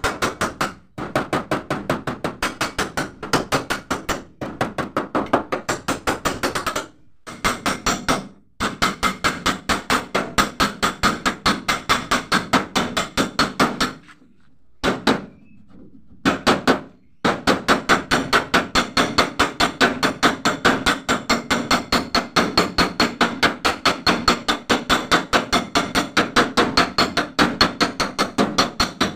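Rapid, even metal tapping on the Mitsubishi L300 van's steel door panel through a flat metal bar held over a protective sheet, working out a dent without breaking the paint. It runs at about four to five taps a second, with a few short pauses.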